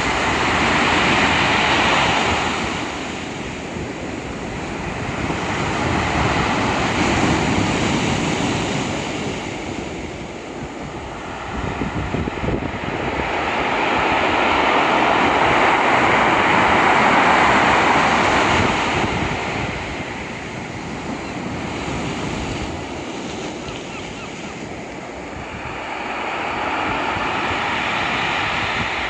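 Rough sea surf in a light storm: waves breaking and washing up in slow surges that swell and fade every several seconds, with wind buffeting the microphone underneath.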